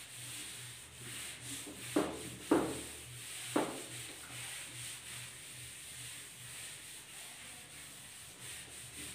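A duster wiping a whiteboard: steady repeated rubbing strokes across the board, with three short knocks between about two and four seconds in.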